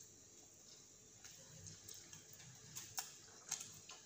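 Quiet eating: a few short, crisp clicks as a fried snack is bitten, chewed and handled on a plate, most of them near the end, over a faint room hum.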